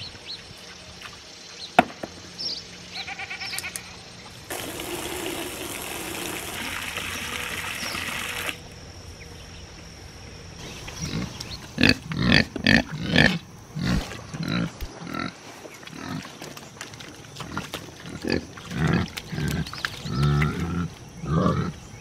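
Kunekune pigs grunting: a run of short, low grunts that begins about halfway through and keeps repeating. Earlier, a garden hose runs into a pan for a few seconds and then shuts off.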